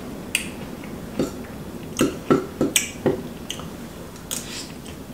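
Eating sounds as a person tastes a spoonful of stew: a series of short, wet mouth smacks and clicks, bunched most densely in the middle.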